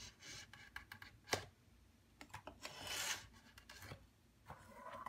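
Faint scraping and rubbing with scattered light clicks as leather is handled and cut on a work surface, with one sharper click about a second and a half in.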